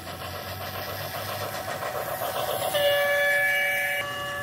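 Toy diesel locomotive running on plastic track with a fast, even rhythmic clatter, then a loud electronic train-horn sound starting about two and a half seconds in and held for over a second.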